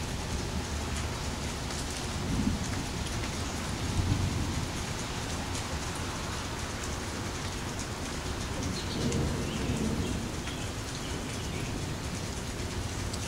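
Steady rain falling, with low rumbles of thunder swelling about two seconds in, around four seconds, and again for a longer roll about nine seconds in.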